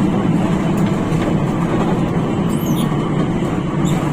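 Steady low engine drone and road noise of a rear-engined Hino RK8 diesel bus under way, heard from inside the passenger cabin.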